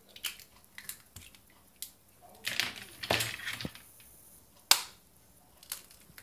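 Raw eggs being cracked open with sharp taps of a small knife blade on the shell and broken into a glass mixing bowl: a string of separate clicks and shell cracks, the loudest one a little before the end.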